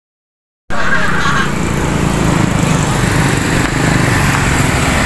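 Honda CS1 single-cylinder four-stroke engine in a KTM 85-bodied dirt bike, running steadily on its stand. The sound cuts in abruptly under a second in.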